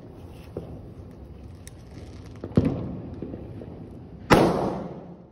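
Firecracker bangs: one sharp bang about two and a half seconds in, then a louder one about a second and a half later, followed by a rumbling tail that fades out.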